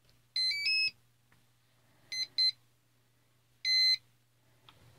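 Brushless ESC power-on and arming tones played through the Sunnysky V2216-15 motor's windings: three quick rising notes, then two short beeps, then one longer beep, signalling that the speed controller has powered up and armed.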